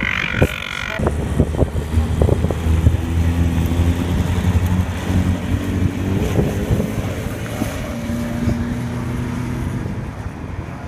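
600cc Jedi single-seater hillclimb car's engine running as the car takes a hairpin, its pitch rising about six seconds in as it pulls away. A different, higher steady engine note cuts off sharply about a second in.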